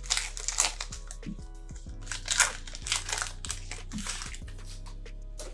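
Plastic trading-card pack wrapper crinkling in bursts as it is handled and opened, over quiet background music.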